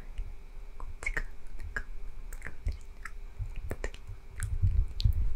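Close-miked mouth sounds: irregular wet tongue and lip clicks and smacks, with a few low muffled bumps against the microphone near the end.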